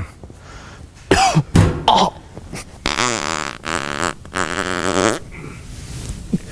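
Loud human burping: a few short belches about a second in, then two long, drawn-out burps whose pitch wavers.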